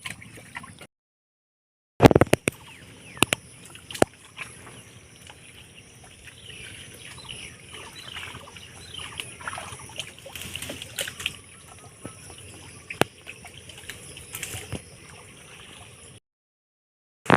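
Water sloshing and splashing in a shallow, nearly drained pond as it is bailed out by hand to catch fish. A quick run of sharp splashes comes a couple of seconds in and a few single splashes come later, over a faint watery trickle. The sound drops out to dead silence twice.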